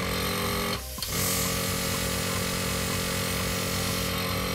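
Sparmax Arism oil-less single-piston airbrush compressor running: a steady motor hum and buzz with a hiss of air over it, fairly noisy but not obtrusive. It dips briefly about a second in, then runs on steadily.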